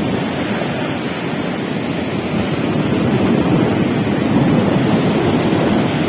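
Rough-sea surf breaking and washing up onto a sandy beach, with wind buffeting the microphone. The wash swells louder about halfway through.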